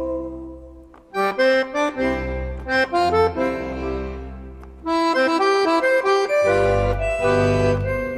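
Accordion playing a traditional folk tune. A held chord fades, then short, separate chords with bass notes, a brief pause about halfway, more short chords, and a held chord near the end.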